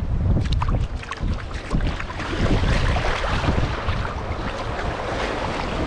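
Wind buffeting the microphone over the wash of gentle surf, with splashes of feet wading through shallow seawater in the first couple of seconds.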